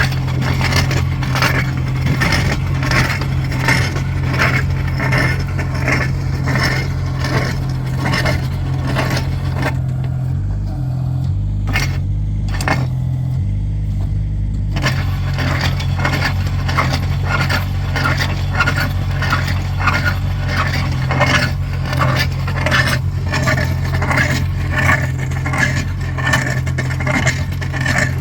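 Kubota mini excavator's diesel engine running steadily while its hydraulic post-hole auger bores into the ground, with dense scraping and rattling of the auger in the soil. About ten seconds in the scraping stops for around four seconds while the engine note shifts, then the digging resumes.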